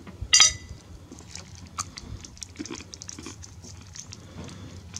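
Someone biting into and chewing a crunchy almond turrón bar, with a wafer layer. A sharp, loud crackle comes about half a second in, then many small crisp crunching clicks as it is chewed.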